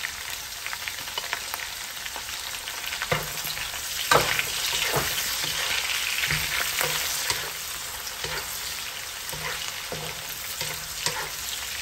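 Chicken innards sizzling as they are stir-fried, with the scrapes and knocks of stirring. The sizzle swells for a few seconds around the middle.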